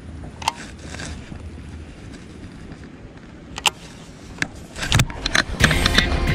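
A bass being reeled in on a baitcasting reel: a few sharp clicks over a low hum, then from about five seconds in a louder, dense splashing and thrashing as the hooked fish comes up near the boat.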